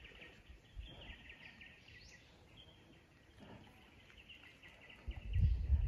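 Steady high chirring of insects in the natural background, with a low rumble on the microphone starting about five seconds in.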